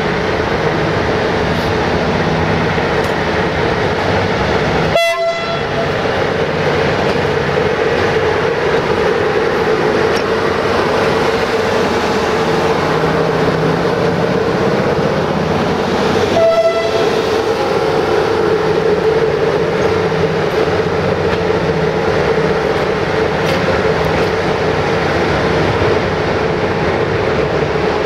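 LE5100 electric locomotive EA 40-0514-6 running past close by while shunting: a loud, steady hum over rolling wheel noise. Two very short pitched blips come about 5 and 16 seconds in.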